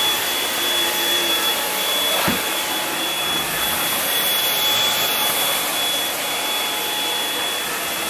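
MooSoo K17 cordless stick vacuum running on its high setting, its motorized brush roll spinning as the head is pushed over a ribbed carpet mat: a steady rushing hiss of suction with a thin high whine over it.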